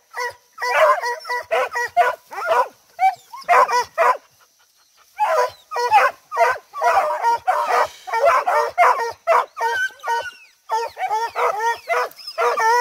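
Beagle-type hunting hounds baying and yelping in rapid, overlapping bursts, several calls a second, with a short lull about four seconds in. They are giving tongue at quarry holed up in a burrow.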